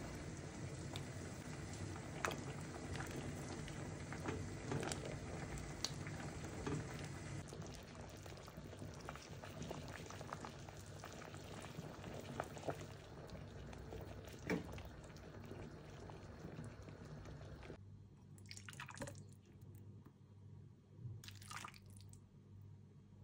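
Pot of green bean soup simmering, a steady bubbling hiss with small clicks of a metal spoon against the pot as it is stirred. About eighteen seconds in it drops quieter, with two short bursts of noise.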